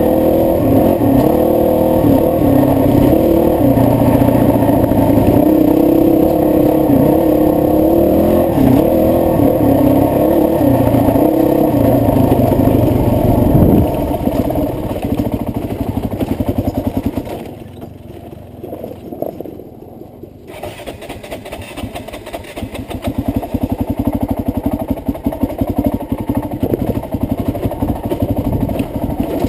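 Honda CRF450X single-cylinder four-stroke dirt-bike engine running under throttle, its pitch shifting up and down. About halfway it falls to a much quieter low level for a few seconds, then picks up again at low revs with an even pulse.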